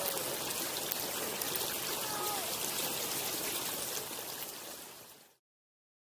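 Steady rushing of a flowing river or stream, with a few faint, short bird chirps. It fades out over about a second and a half and then cuts to silence.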